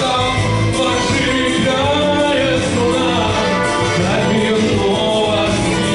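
Man singing a song into a microphone over a backing track played through speakers, his amplified voice and the accompaniment continuing without a break.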